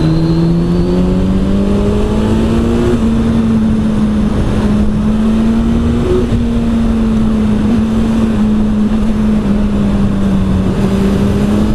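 Kawasaki Z900's inline-four with an Arrow exhaust pulling at a steady speed: the engine note rises a little over the first couple of seconds, then holds level, with a small dip about six seconds in. Steady wind rush runs under it.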